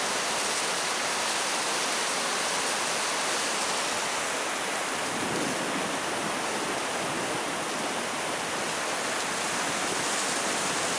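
Steady rushing of Vernal Fall's water, an even, unbroken noise that holds constant throughout.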